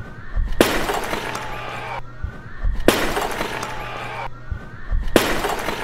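A clay jar smashed on a stage floor: a sharp crash, then pottery shards scattering and clattering. It happens three times, about every two and a half seconds.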